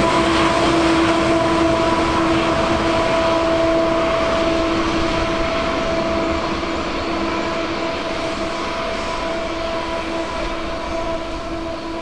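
Union Pacific diesel locomotive at the rear of a freight train passing below and moving away: a steady engine drone with a held hum over rail and wheel rumble, fading gradually as it recedes.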